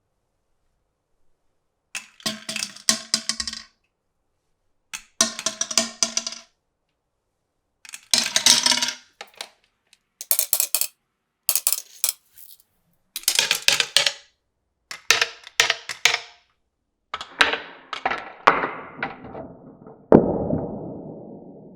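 Marbles running down a marble-run track, clattering and clicking in short runs of rapid knocks, about eight of them separated by brief silences. Near the end they give way to a steadier rolling rumble that fades out.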